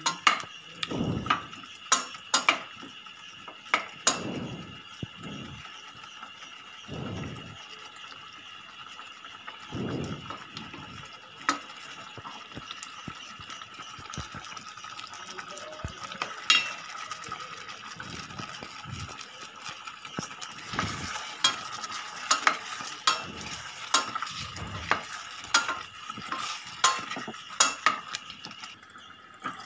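Wooden spatula stirring mango pieces and coarse coconut paste in a stainless steel pot, with irregular knocks and scrapes against the pot.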